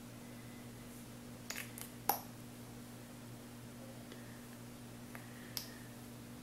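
Quiet room with a steady low hum, broken by a few faint clicks: about a second and a half in, a sharper one at about two seconds, and another near the end. The clicks come from handling a lip gloss tube and its applicator.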